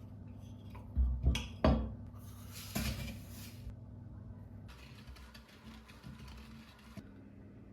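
Household objects being handled and set down: three sharp knocks in quick succession about a second in and a lighter one near three seconds, then a soft steady hiss.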